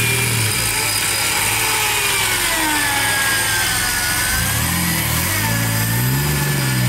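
Jeep Wrangler's engine running in deep mud while its front electric winch pulls it along on the rope, the winch whining with a pitch that sags and rises under load. From about halfway through the engine revs up and down.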